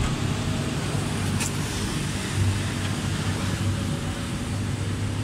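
Steady road traffic noise with a low hum that swells in places, and a light click about a second and a half in.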